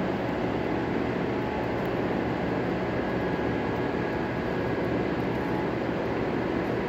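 Steady, even rumble of a large factory hall's background noise, with no distinct knocks, clicks or changes in pitch.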